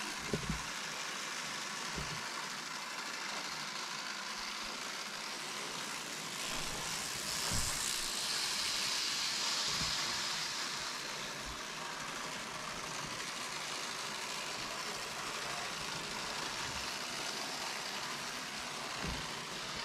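Z scale model train running on its track: a steady faint whir and rolling hiss that grows louder for a few seconds in the middle. A few soft thumps.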